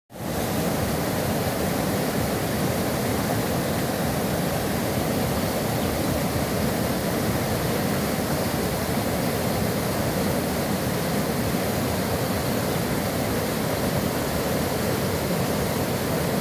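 Flooded river rushing over a small weir spillway: a steady, unbroken rush of churning water, heaviest in the low range.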